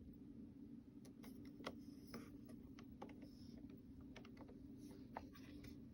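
Near silence: a low steady hum with a few faint, scattered clicks from hands handling the camcorder and phone.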